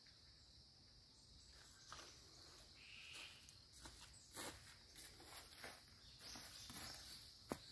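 Faint footsteps on dry fallen leaves, irregular steps starting about two seconds in, over a steady high-pitched drone that fits insects.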